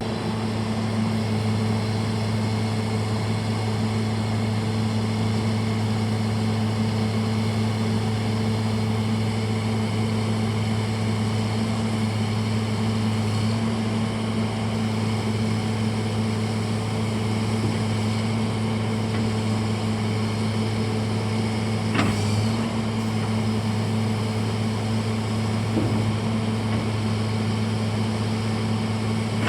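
Diesel engine of a Caterpillar 963C II track loader running steadily at a constant speed, a deep even hum with no revving. A single sharp click about two-thirds of the way through.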